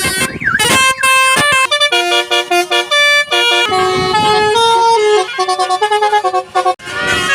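A Basuri 'telolet' musical car horn playing a tune: a quick run of loud horn notes stepping up and down in pitch, with a short break about halfway through.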